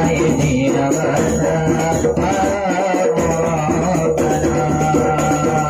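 Sholawat devotional music: a melodic line over sustained steady tones, with jingling percussion and a light beat about once a second.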